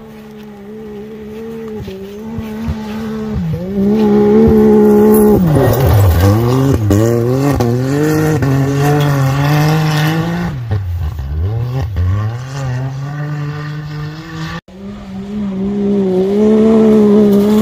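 Can-Am Maverick X3 side-by-side's engine running hard on a dirt track, growing louder as it approaches; twice its pitch drops sharply and climbs again as the driver lets off and gets back on the throttle. The sound breaks off for an instant near the end and picks up again.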